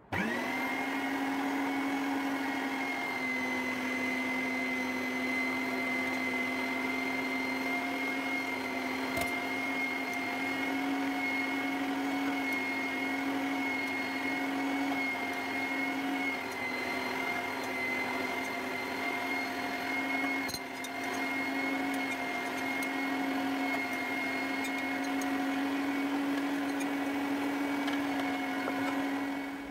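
Electric meat grinder switched on, running with a steady motor hum as it grinds fried chicken liver through a fine plate, then switched off.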